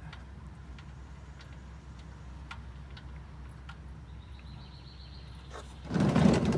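Faint, irregular ticks over a low steady hum as the oil drain plug is turned out by hand. About six seconds in, a sudden loud rush as the plug comes free and the engine oil gushes out, overshooting the drain jug.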